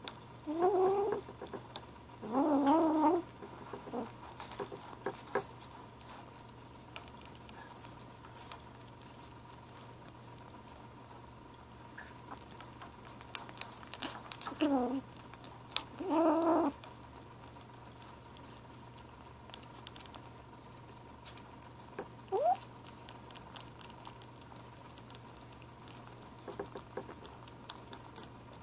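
Seven-week-old gray kitten making short growly 'talking' calls while eating from a tin of cat food: two near the start, two about halfway through and a brief one later. Small clicks of licking and chewing fall between the calls.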